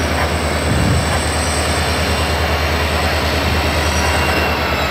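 Double-stack container freight train rolling slowly past: a steady rumble of wheels and cars on the rails, with a faint high wheel squeal.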